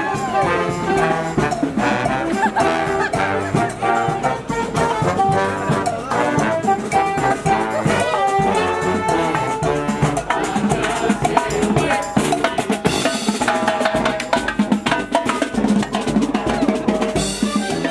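Marching brass band playing a tune, with saxophones, trombones and a sousaphone over a steady drum beat.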